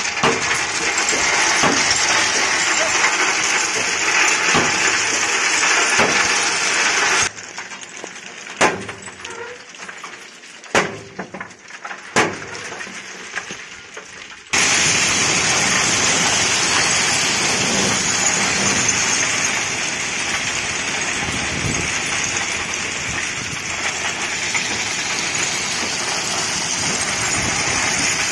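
Crushed stone ballast pouring and clattering out of a railway hopper wagon's bottom discharge chute onto the track, a steady rushing hiss. About seven seconds in it drops to a much quieter stretch with three sharp metal clanks as workers lever at the chute with a crowbar, then the loud pour comes back about halfway through.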